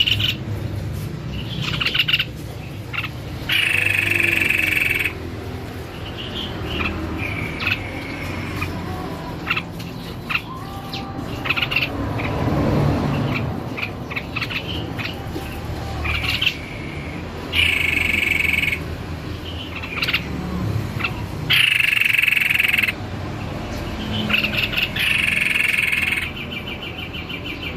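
White-necked babbler singing vigorously: loud, buzzy phrases of about a second each, repeated several times, with shorter notes in between.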